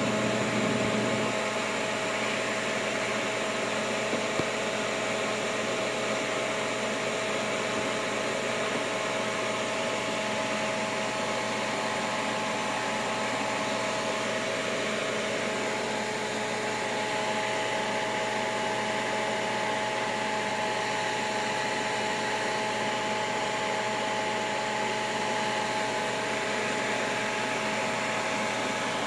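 Steady whirr of an electric motor-driven fan, with a hum of several steady tones running through it; a lower hum drops out about a second in.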